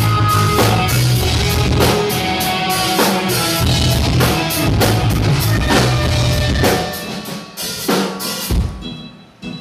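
Punk rock band playing live: drum kit beating out a steady rhythm with kick and snare over bass and guitar. The playing breaks up about seven seconds in, with a last hit near the end that rings out.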